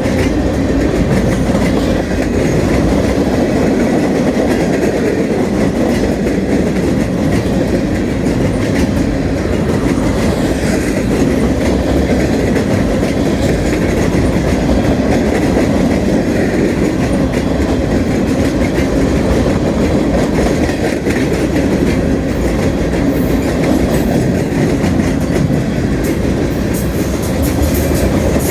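Freight train rolling past, its wheels rumbling steadily on the rails.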